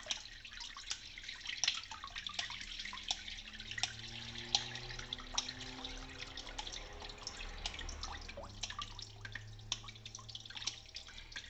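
Water from a tap dripping and trickling into a sink, with many small sharp ticks scattered throughout.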